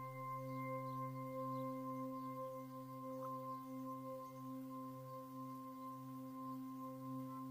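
Ambient background music: a steady drone of held, bell-like tones that gently pulse, with a faint outdoor hiss underneath.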